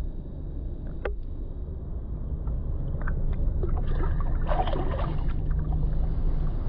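Water sloshing and splashing around a hand as a largemouth bass is released, over a steady low rumble. There is a short flurry of splashing about four to five seconds in as the fish kicks free.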